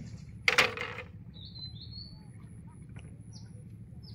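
Small birds giving several short, high chirps, some falling in pitch, over a steady low rumble, with one brief loud noise about half a second in.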